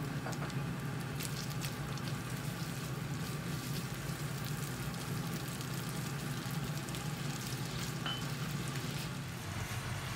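Minced pork sizzling steadily as it fries in a hot wok, with a few light clicks of the spatula.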